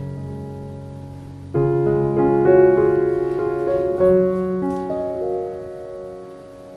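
Soft background piano music: slow sustained chords, a new chord coming in about a second and a half in, then notes fading away toward the end.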